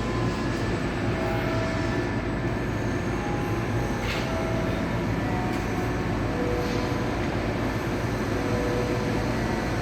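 Church bells ringing faintly, a few struck notes at different pitches, over a steady low rumble of city noise that is the loudest thing heard.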